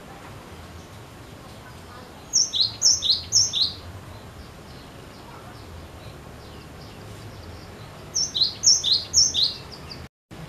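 Cinereous tit singing two phrases a few seconds apart, each three quick repeats of a two-note unit, a high note then a lower one.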